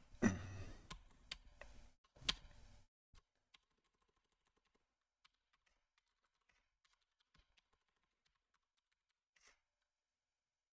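Typing on a computer keyboard: a run of key clicks in the first few seconds, with a louder knock near the start and another about two seconds in, then only a few faint, scattered taps.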